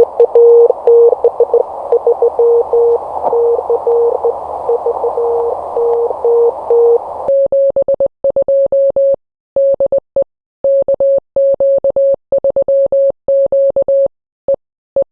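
Morse code (CW) tone from a ham radio receiver, keyed in dots and dashes over band hiss. About seven seconds in the hiss cuts off, and a clean, slightly higher Morse tone goes on sending with silence between the characters.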